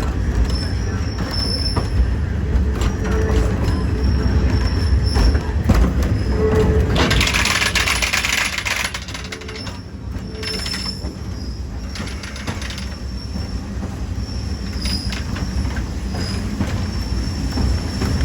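Excursion train running on the rails: a steady low rumble with thin, high wheel squeals coming and going, and a loud hiss lasting about two seconds near the middle.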